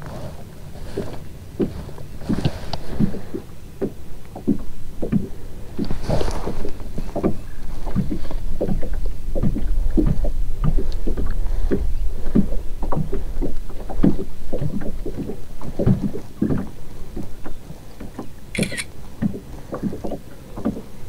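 Irregular light knocks and slaps around a fishing kayak, two or three a second, with a low wind rumble on the microphone that swells in the middle.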